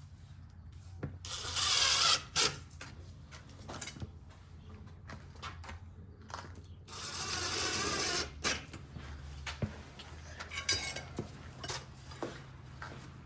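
Screws being driven into an aluminium screen track frame with a driver: two runs of about a second each, the first about a second and a half in and the second about seven seconds in, with clicks and knocks from the tool and parts in between.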